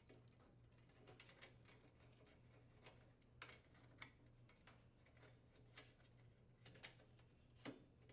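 Faint scattered light clicks and taps from hands handling parts on the gas range, over a low steady hum; the sharpest click comes near the end.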